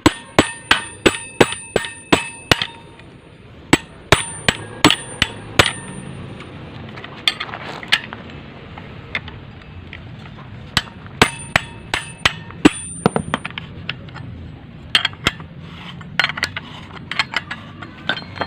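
Hammer blows on the metal parts of an automatic scooter's CVT, knocked apart to get at its inner bearings: sharp strikes in bursts of several a second with pauses between, the first ones ringing briefly with a metallic tone.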